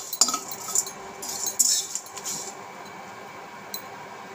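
Metal spatula scraping and stirring whole spices being dry-roasted in an aluminium kadai, in short strokes for about two and a half seconds, then stopping. A faint click near the end.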